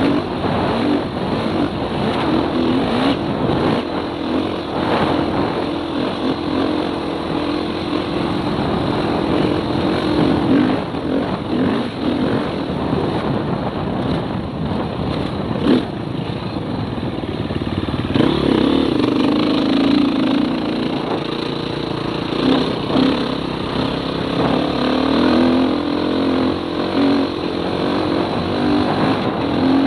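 Dirt bike engine running under load at trail speed, with rushing wind noise on the camera. A sharp knock comes about halfway through as the bike hits a bump, and the engine note comes back stronger for the last third.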